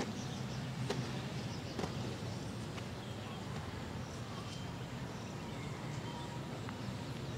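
Outdoor background with a steady low hum and scattered faint bird chirps, with a few soft thuds about a second apart in the first three seconds from soldiers' boots marching in drill step on grass.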